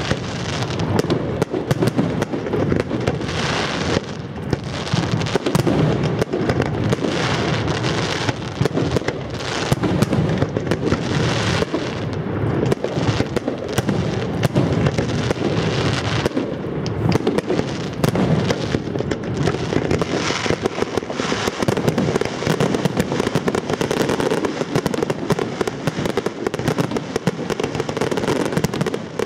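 Fireworks display: many bangs going off in quick succession, dense and continuous, with no pause.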